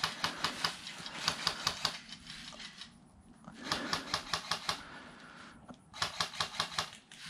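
Airsoft guns firing on full auto in the field: three bursts of rapid sharp clicks, about seven shots a second, each lasting one to two seconds with short pauses between.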